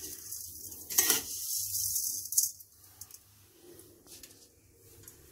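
A metal spatula scrapes and clinks against a heavy-bottomed kadai as dry roasted vermicelli is scooped out, with two sharp knocks about one and two and a half seconds in. After that the sound drops to near quiet.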